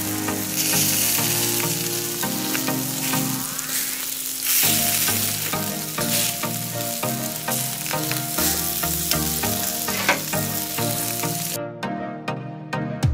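Meat sizzling on a grill grate over a small wood-fired folding camp stove, a steady hiss that stops suddenly near the end. Background music plays underneath.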